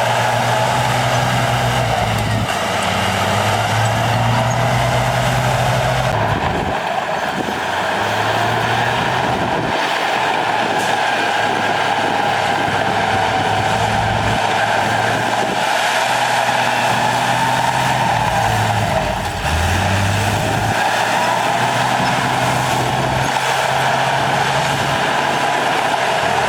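Heavy earthmoving machinery's diesel engine running continuously, its pitch stepping up and down every few seconds as the load changes, with a steady higher whine above it.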